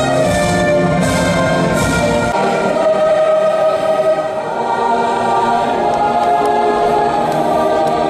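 Music: orchestral brass for about the first two seconds, then a choir singing with orchestra.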